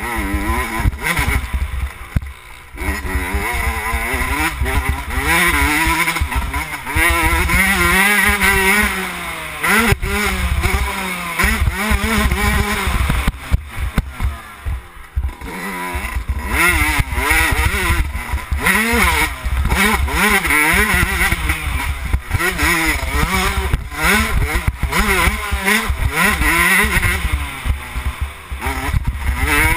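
2011 Yamaha YZ125's 125 cc single-cylinder two-stroke engine being ridden hard, revving up and down with each throttle and gear change. Its pitch repeatedly climbs and falls, and the throttle shuts off briefly about two seconds in and again about halfway through.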